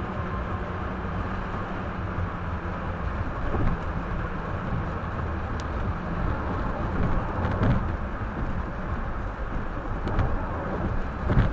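Steady road and tyre noise with engine hum inside a moving car, picked up by a dashcam, with a few dull thumps, the loudest near the end. The recording is played 1.3 times fast.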